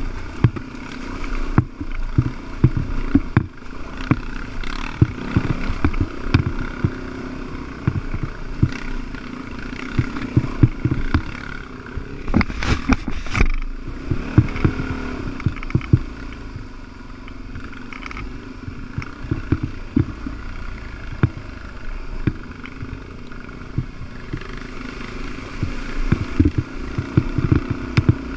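Dirt bike engine running steadily while riding a rough dirt trail, with frequent knocks and rattles from the bike jolting over ruts and a burst of louder clattering about halfway through.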